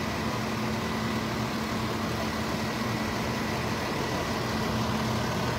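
Steady low hum of an idling engine, even in level throughout.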